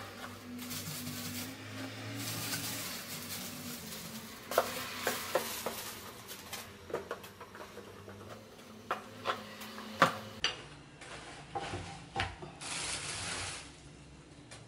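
Plastic bags rustling and plastic food-storage containers being handled, with a run of sharp clicks and knocks as vegetables are packed into them, the loudest knock about ten seconds in.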